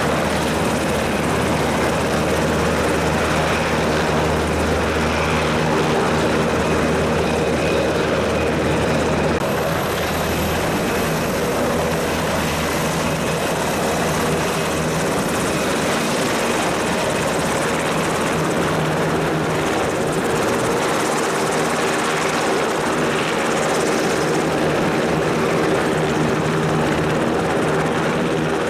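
Sikorsky Seahawk helicopter running on the ground with its twin turboshaft engines driving the main and tail rotors, a steady mix of turbine whine and rotor noise.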